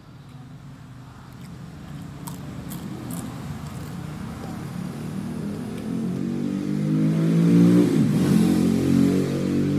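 A motor vehicle approaching and driving past, its engine growing steadily louder and loudest about eight seconds in as it goes by.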